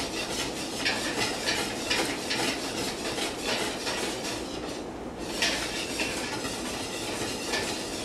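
Wire whisk clinking and scraping against a stainless steel pot as it stirs soap batter, about two strokes a second, with a brief pause about five seconds in.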